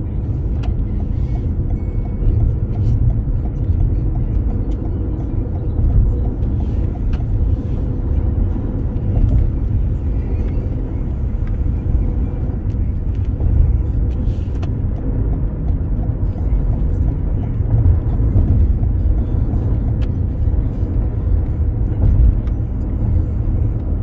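Steady low rumble of road and engine noise inside a car's cabin while it drives along an expressway.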